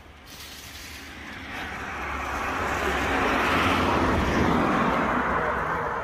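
A motor vehicle driving past: its noise grows louder to a peak about four seconds in, then fades away.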